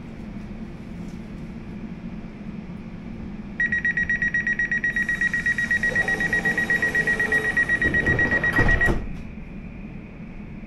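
Elizabeth line door-closing warning: a loud, high, rapid beeping that starts a few seconds in and lasts about five seconds, ending with a couple of thuds as the doors shut, over the steady hum of the stationary train.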